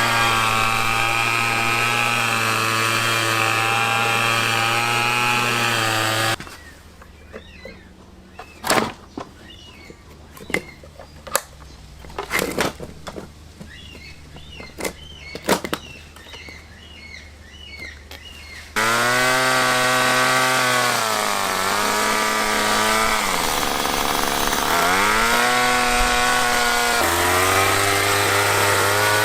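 Rover R2600 multi-tool's 25cc two-stroke engine running at a steady speed, then a quieter stretch of about twelve seconds with several sharp knocks and faint chirps. The engine then runs again, its speed dropping and rising several times.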